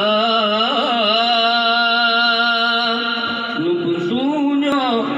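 A man singing unaccompanied into a microphone in Acehnese chant style. He holds one long note with a wavering, ornamented pitch, then drops to a lower phrase about three and a half seconds in.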